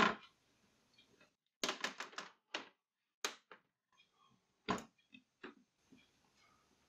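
Plastic clips of an LCD TV's front frame clicking as the frame is prised off. A quick run of several sharp clicks comes about two seconds in, then single clicks at intervals.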